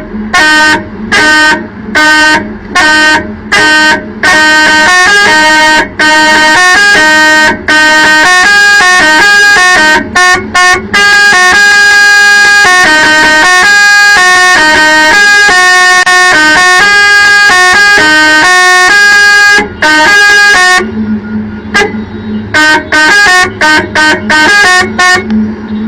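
Multi-tone musical air horn (a 12-melody 'Arab horn') playing tunes. It opens with a string of short blasts, runs into a long melody of held notes, and goes back to short choppy blasts for the last few seconds.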